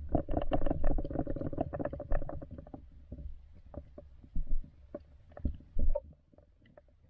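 Muffled underwater sound picked up by a submerged action camera in a flowing river. It is a low rumble with many quick clicks and knocks. These thin out after about three seconds into scattered single knocks, and the sound dies down near the end.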